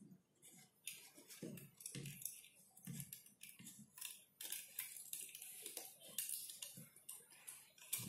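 Faint, irregular clicks and scratches of stripped copper wire ends being pushed and wiggled into the pin holes of a plastic 5-pin wall socket.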